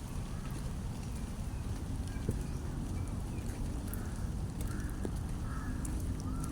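Low rumble of wind on the microphone during rain, with faint short chirps repeating throughout.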